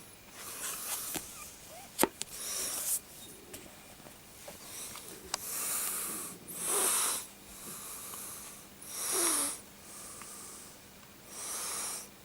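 A person breathing heavily and slowly close to the microphone: about six loud, hissing breaths in and out, a second or two apart. There is a sharp click about two seconds in.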